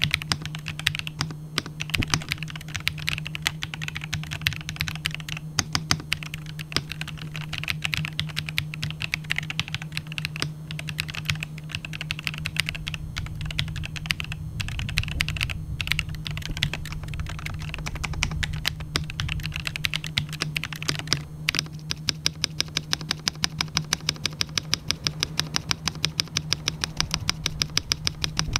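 Typing on an Epomaker Aura75 mechanical keyboard with Epomaker Shadow Black switches and cherry-profile keycaps: fast, irregular keystrokes, then an even, rapid run of keystrokes for the last quarter. A steady low hum lies underneath.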